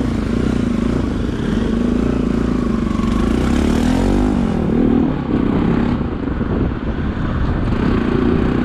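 Motorcycle engine running while riding, heard from the bike over low wind rumble on the microphone. The engine note rises and falls briefly about three to four seconds in.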